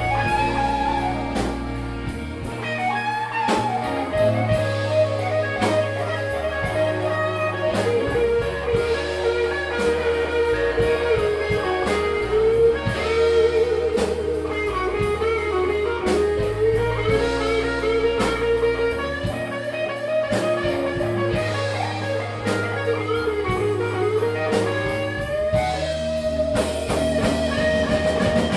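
Electric blues band playing an instrumental passage live: a lead line of long, bent, wavering notes over bass and drums.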